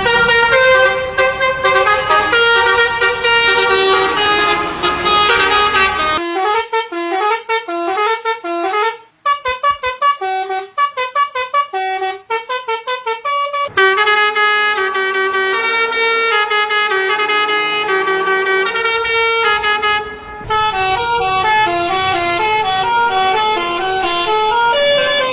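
Indonesian bus 'telolet' horns: multi-tone musical air horns playing quick melodic tunes one after another. Through the middle stretch the notes come short and choppy, then fuller, longer tunes return.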